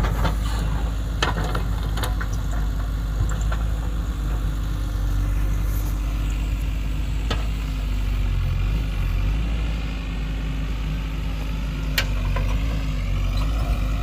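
JCB 3DX backhoe loader's diesel engine running steadily, with a few short sharp knocks over it.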